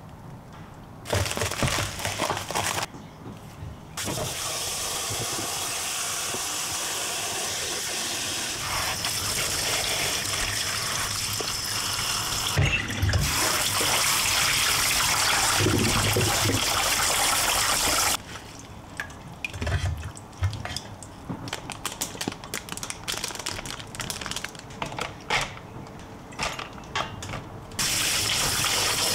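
Kitchen tap running into a plastic colander as mushrooms are rinsed by hand under the stream. Partway through the water stops and there is scattered clicking and rustling of handling, then the tap runs again near the end.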